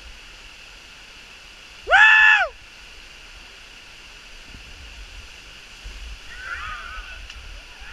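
Small forest waterfall splashing steadily into a pool. About two seconds in, one loud call rises and falls in pitch, lasting about half a second.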